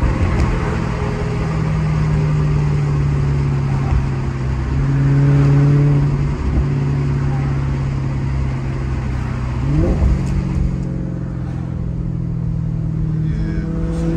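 Maserati GranTurismo V8 engine and exhaust running while driving. It holds a steady note, and about ten seconds in the revs sweep up quickly and settle a little higher.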